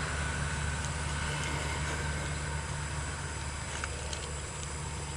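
A steady low mechanical hum, like an engine running at idle, with a faint steady high tone above it.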